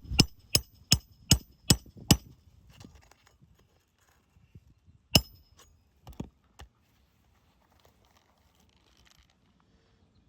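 Hammer strikes on metal, most likely a roofing nail, during an asphalt shingle repair. There is a quick, even run of about seven blows with a bright metallic ring, then a few more single blows a few seconds later.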